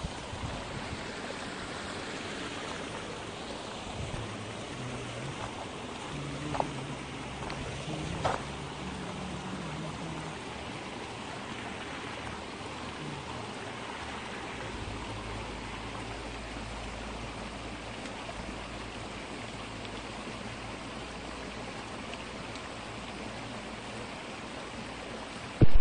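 Steady rush of fresh rainwater pouring into a reservoir at its inlet, with a couple of faint clicks about six and eight seconds in.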